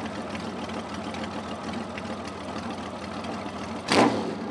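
Large cruiser motorcycle engine idling steadily in neutral, running smoothly enough that nickels stand balanced on edge on the engine. A short, loud burst comes near the end.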